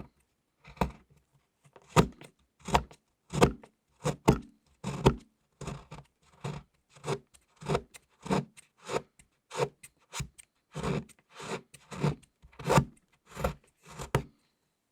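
A thick bar of chocolate being shaved into flakes in rhythmic scraping strokes, about one and a half a second, that stop near the end.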